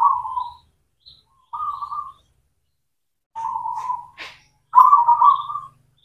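Zebra dove (perkutut) cooing in four short phrases of quick stuttering notes, with faint high chirps between them.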